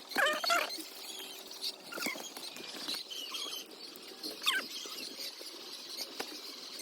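Poultry making short, squeaky calls that bend in pitch: a cluster right at the start and another about four and a half seconds in, over scattered light ticks and rustles.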